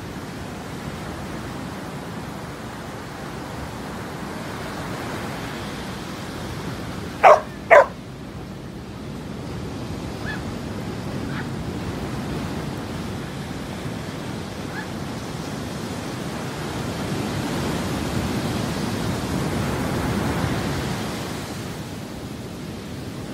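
A Samoyed dog barking twice, sharp and loud, about half a second apart roughly a third of the way in, with a few faint short yips later. Steady wash of surf underneath, swelling near the end.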